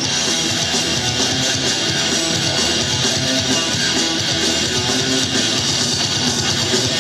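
Loud, upbeat pop music with a steady beat, in an instrumental passage without singing.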